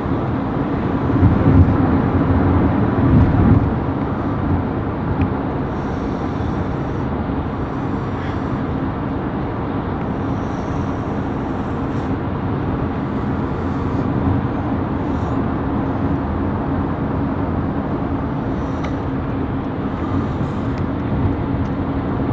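Steady road and engine noise inside a moving car's cabin, with a louder low rumble for a couple of seconds near the start and brief bursts of higher hiss now and then.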